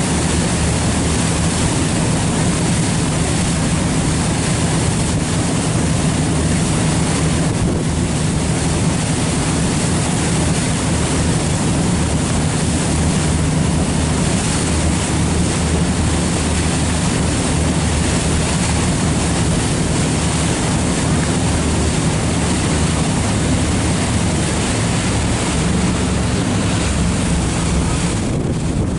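Boat engine running steadily as a low hum, under a continuous hiss of wind on the microphone and rushing water.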